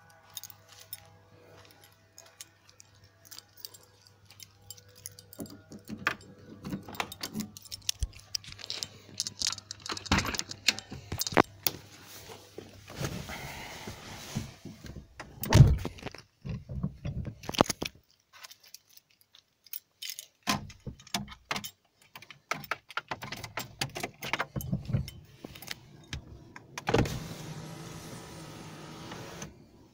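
Handling noises as someone gets into a car: keys jangling, a run of clicks and rattles, and a loud thud about 16 s in. Near the end comes a couple of seconds of steady mechanical noise.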